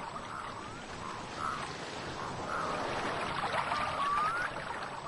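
Rushing water with a bird's short whistled calls about once a second, and one longer rising whistle near the end.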